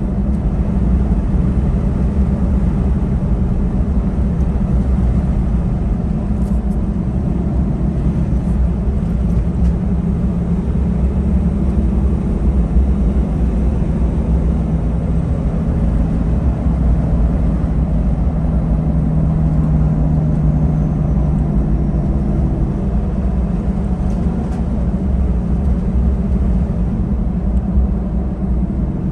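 Truck driving along a paved road, heard from inside the cab: a steady low rumble of engine and tyre noise with a faint engine hum that drifts slightly in pitch.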